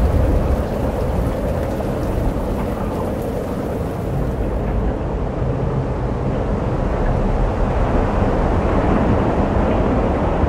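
Thunderstorm sound effect: a continuous low rumble under a hiss, the hiss thinning out about four and a half seconds in.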